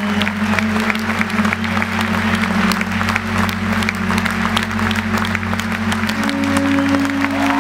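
A crowd clapping steadily, over music with long held notes.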